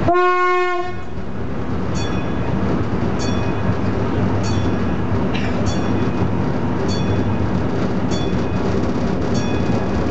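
Horn of the Talbot railcar T44 heard from inside the cab: one short blast, a single steady tone lasting under a second. Then the railcar runs on, its engine and wheels giving a steady drone with a light click from the rail joints about every second.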